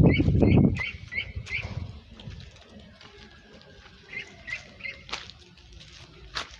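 A duckling peeping: a quick string of short rising peeps, about three a second, for the first second and a half, then three more about four seconds in. A loud low rumble runs under the first second, and two sharp clicks come near the end.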